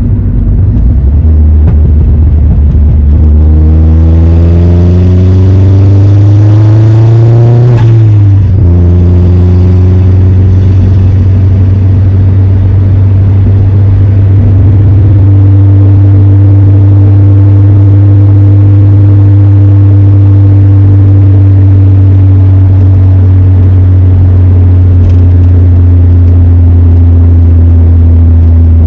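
Car engine accelerating through a gear, its note rising for several seconds, then falling sharply at a gear change about eight seconds in and settling into a steady drone while cruising.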